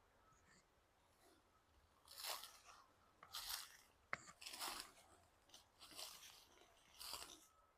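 Slow footsteps crunching through dry leaf litter on the woodland floor, five steps a little over a second apart starting about two seconds in, with one sharp click about halfway through.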